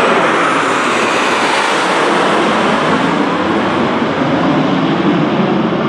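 Aermacchi MB-339 PAN jet trainers of the Frecce Tricolori flying over in formation. Their engines make a loud, steady jet rush.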